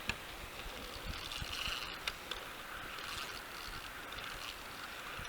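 Faint steady rush of river water around a kayak, with a few light knocks.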